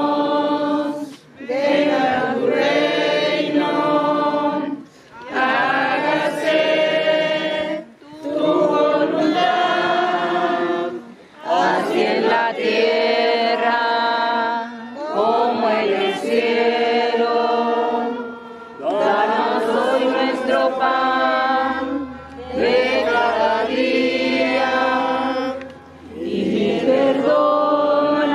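A congregation singing together in unison, in slow phrases of a few seconds each, with short pauses for breath between them.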